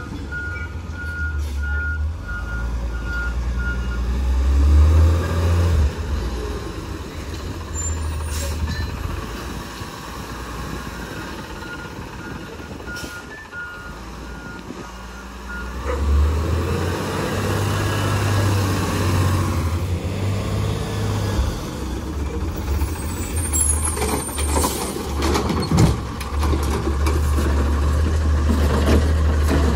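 An Autocar ACX garbage truck with a Rapid Rail automated side-loader body, its engine running with a steady low rumble. Its reversing alarm beeps at the start and again midway, with a short hiss from the air brakes. Near the end the automated arm clatters as it grabs and lifts a trash cart.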